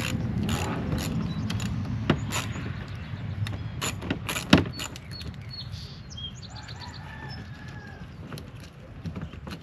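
Socket ratchet clicking in short strokes, about two a second, as a fender-liner bolt is backed out; the clicking stops about four and a half seconds in. Birds chirp in the background.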